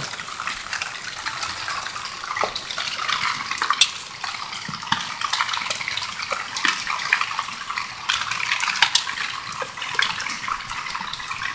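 Hailstorm: heavy rain with hailstones striking tarps and the ground, a steady hiss with many scattered sharp clicks and ticks.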